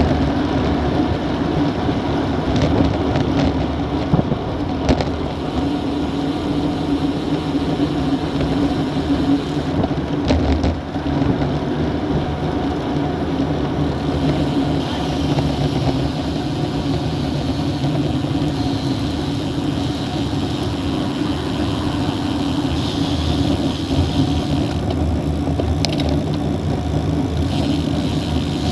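Steady wind rush and tyre hum from riding a road bike at speed, picked up by a bike-mounted action camera, with a few sharp clicks about three to five seconds in and again around ten seconds. Car traffic runs alongside near the end.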